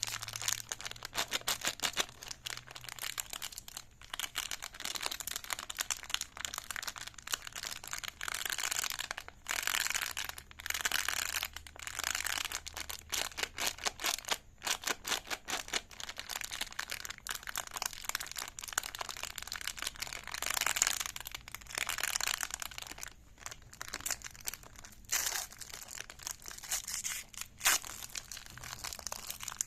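Plastic wrapper of a big spiral lollipop crinkling and tearing as it is unwrapped: uneven crackling with many sharp snaps, swelling and easing in stretches.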